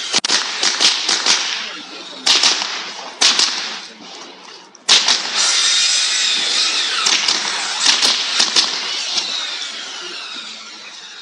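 A .22 rimfire Mini Rifle fired in quick pairs and short strings of shots, with brief gaps between strings. It fires a burst near the start, single pairs around two and three seconds in, then a long rapid string through the middle that tails off toward the end.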